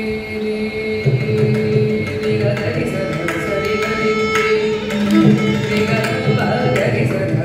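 Carnatic concert music in raga Abhogi, set to khanda chapu tala: a held melodic line from voice and violin. About a second in, mridangam and ghatam strokes come in.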